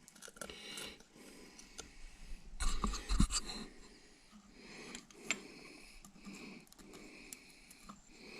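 Faint scraping, rubbing and clicks of hand tools and parts being worked on an engine during teardown, with a louder knock about three seconds in and a sharp click about five seconds in.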